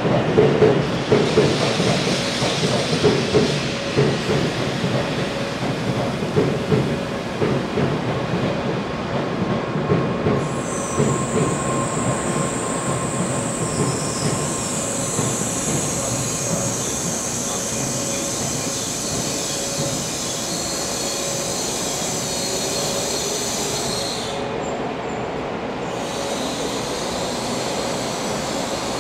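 Train wheels in a station: a rumbling clatter over the first several seconds, then a high, steady wheel squeal from about ten seconds in that drops out briefly near the end.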